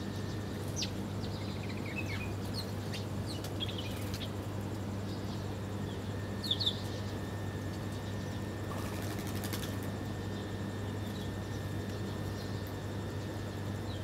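House sparrows giving scattered short, high chirps, the loudest pair a little past halfway, over a steady low background hum.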